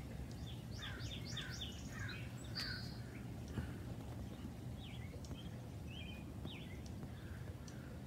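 Songbirds singing in a garden: a burst of quick chirping notes starting about half a second in, and a second, sparser phrase around five to six and a half seconds in, over a steady low background rumble.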